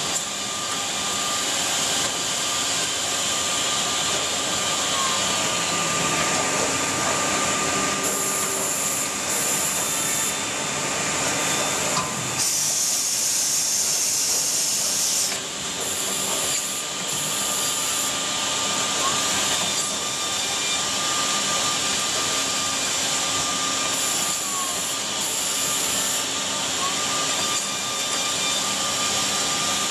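Edgebanding machine's corner-rounding units running with their dust extraction: a steady machine hum and rush of air, broken by short bursts of high hiss that start and stop sharply, with a longer, stronger hiss about halfway through.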